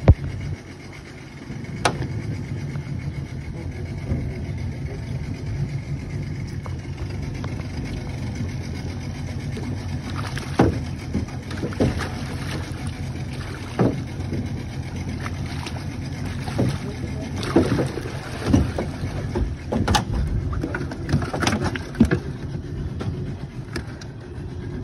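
Boat motor running in a low, steady rumble, with scattered knocks and clunks in the aluminium jon boat that come more often in the second half.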